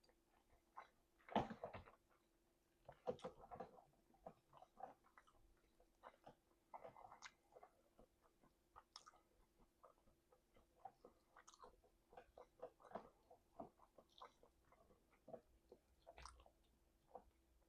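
A person eating messily: wet chewing and lip-smacking, a run of small irregular smacks and clicks, the loudest about a second and a half in.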